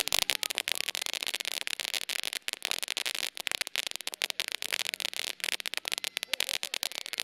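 Black Cat 1.21 Gigawatt firework fountain spraying sparks, with dense, rapid, irregular crackling over a steady hiss.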